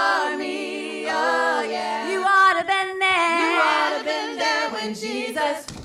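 Women's voices singing a gospel song a cappella in harmony, with lower notes held steady while the upper voices slide and ornament the melody.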